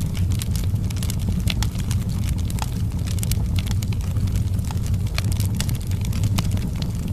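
Fire in a fireplace burning with a steady low rumble, and frequent sharp crackles and pops at irregular intervals.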